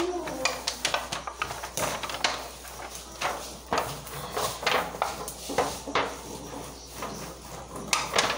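Irregular clinks and knocks of kitchen utensils against pots and dishes, a few a second.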